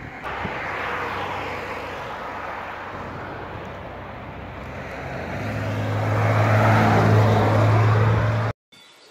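A motor vehicle approaching on the road: a steady rush of engine and tyre noise with a low hum that grows louder from about halfway through, then cuts off abruptly near the end.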